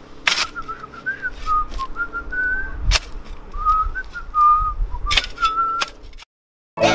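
Someone whistling a wavering tune while a shovel scrapes and strikes into dirt and stones a few times; everything cuts off about six seconds in.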